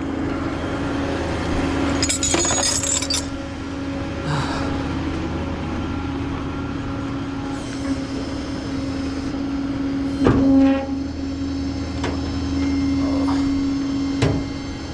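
A machine running with a steady hum, with metallic clanks and rattles about 2 seconds in and again about 10 seconds in.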